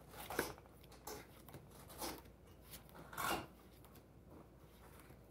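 Pokémon trading cards being handled and slid against each other: a few soft, short rustles about a second apart, the loudest about three seconds in.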